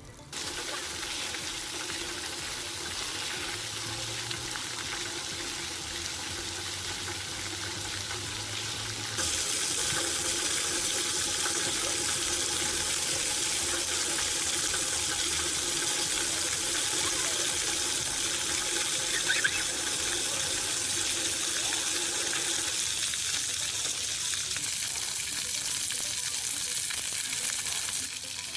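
Splash pad water jets spraying and splashing in a steady rush. It gets louder about a third of the way in and eases off just before the end.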